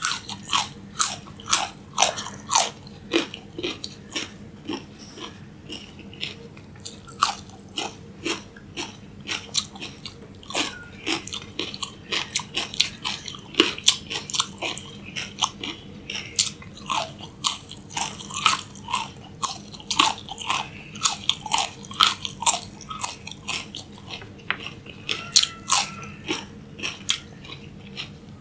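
Raw carrot sticks being bitten and chewed close to the microphone: a steady run of sharp, crisp crunches, a few each second, over a faint steady hum.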